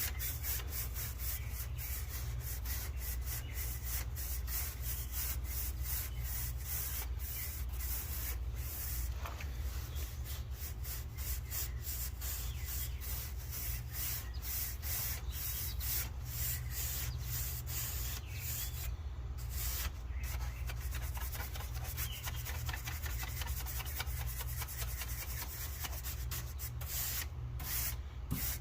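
A brush scrubbing dry dirt and debris off the fins of an air-conditioner condenser coil, in quick, repeated scratchy strokes.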